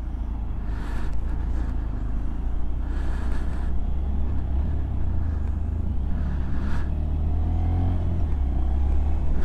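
Honda Monkey's single-cylinder four-stroke engine running as the bike rides along the road, under a steady low rumble of wind on the microphone.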